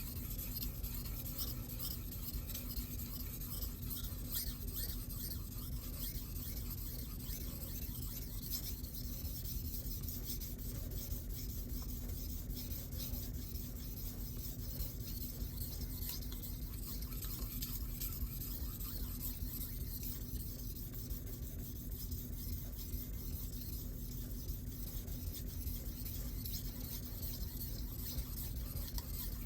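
Steel knife edge sliding back and forth on a Shapton Glass 1000 sharpening stone with light pressure, a steady soft scraping: polishing out the scratches left by the coarse stone.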